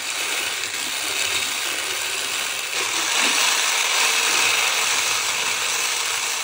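Electric stick blender with a wire whisk attachment whirring steadily as it beats egg whites and sugar into a meringue, the whisk swishing through the foam in the bowl. It gets slightly louder about three seconds in.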